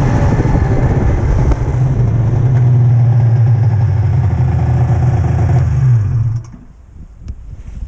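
Polaris Ultra snowmobile engine running steadily under throttle, then its note falls and drops away about six seconds in as the throttle comes off, leaving it much quieter.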